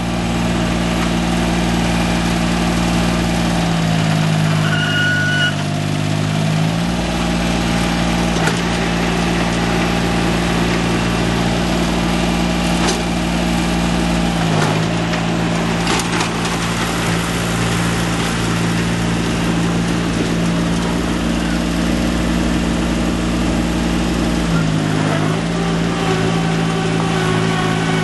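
Kumiai MT1601 compact tractor's diesel engine running steadily, its note dipping briefly a few times.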